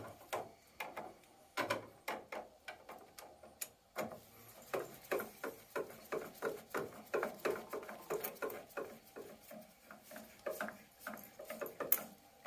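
Screwdriver doing up the screws that hold a boiler's replacement plate heat exchanger in place: a run of small, irregular metal clicks and ticks, a few a second, with one sharper click near the end.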